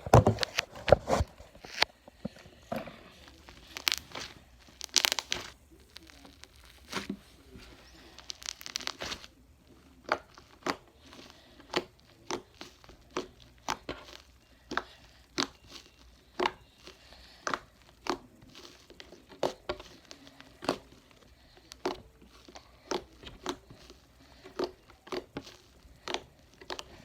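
Fluffy slime with beads being squeezed and stretched by hand, giving a long run of sharp crackling, popping clicks, about one or two a second.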